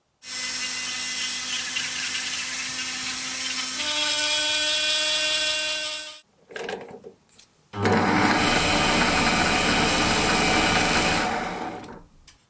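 A small electric power tool running in two runs of about six and four seconds. Its motor whine steps up in pitch partway through the first run, and the second run is noisier and rougher.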